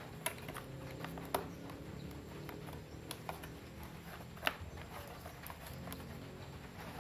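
Small metal alligator clips and test leads being handled and clipped together while hooking a solar panel up to a multimeter: a few scattered sharp clicks and taps over a steady low background, the loudest click about four and a half seconds in.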